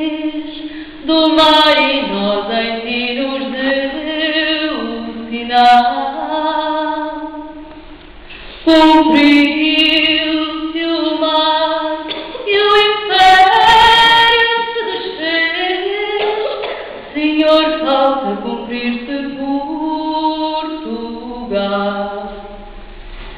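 A woman singing solo a cappella, one unaccompanied voice holding long, wavering notes in slow phrases, with brief pauses between phrases.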